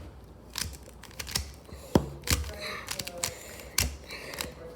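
Stock Rubik's-brand puzzle cube being turned by hand: irregular plastic clacks as its layers snap round, several in a few seconds. It is the all-plastic kind with no magnets or springs, called slow and bad to turn.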